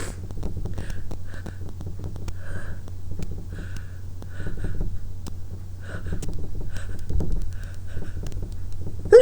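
A woman's short, irregular sniffs and breaths as she tickles her nose with lemon balm to bring on a sneeze, with small clicks and a low steady hum underneath.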